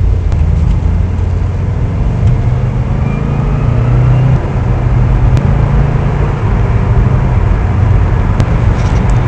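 Subaru WRX STI's turbocharged flat-four engine idling steadily while it warms up.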